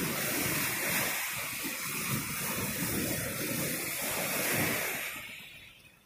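Ocean surf: a wave breaking and washing over rocky shore, a steady rushing hiss that fades away over the last second or so as the water draws back.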